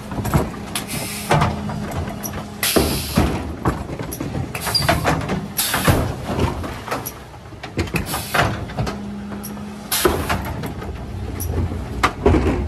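Refuse truck's Zoeller bin lifter tipping a wheelie bin into the hopper, with a steady hydraulic hum over the truck's running engine. Several sharp bangs and clatters come as the bin is tipped and emptied, with a last loud bang near the end as the lifter comes down.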